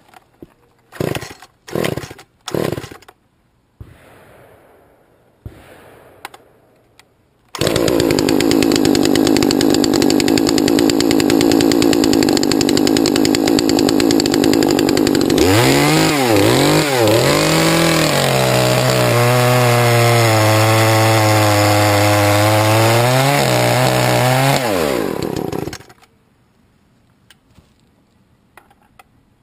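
Poulan two-stroke chainsaw: several quick tugs on the starter cord, then the engine runs at high speed for about eight seconds. It falls to a lower, wavering pitch with a few revs, then is shut off.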